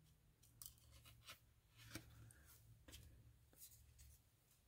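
Very quiet handling of paper baseball trading cards: a handful of soft clicks and rustles as cards are slid and flicked through the stack, over a low steady hum.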